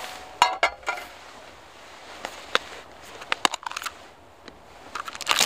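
Scattered light clicks and knocks of cooking gear being handled: a metal mess-kit pan and utensils. There is a cluster about half a second in, a burst of quick clicks a little past the middle, and more near the end.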